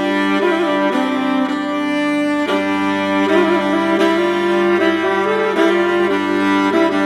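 Instrumental background music: a slow melody of held notes over a sustained accompaniment.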